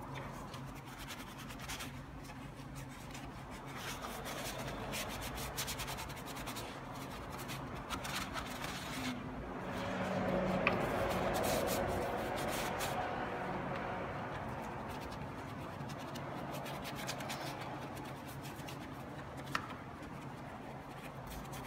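Small paint brush scrubbing degreaser foam over a plastic engine cover and into the engine bay's corners and crevices: continuous bristle rubbing and scratching, loudest around the middle.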